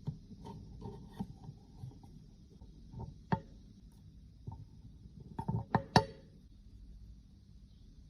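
Small cosmetic cases and tools being handled: scattered light taps and clicks, with a quick cluster of louder clicks near six seconds in, over a faint steady hiss.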